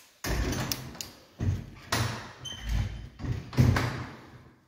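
Handling noise on a phone's microphone: several thumps and rubbing rumbles right at the microphone, with a few sharp taps.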